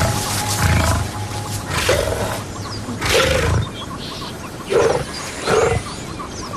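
Big cat growling in four short, harsh snarls spread over a few seconds.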